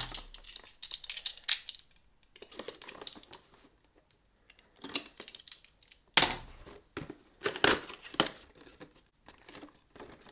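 Cardboard booster box being opened and its packaging handled: spells of rustling, tearing and sharp clicking with short pauses between them.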